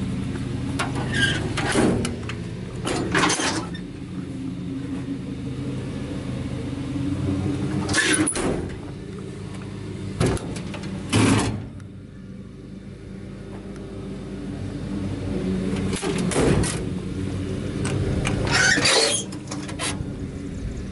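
2001 Ford F-550 Super Duty truck engine idling steadily. Several short bumps and rustles are heard over it.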